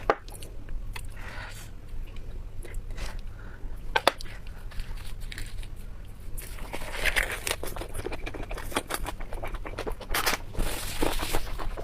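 Close-miked chewing and wet mouth sounds of someone eating braised pork belly, with many small clicks and smacks scattered throughout.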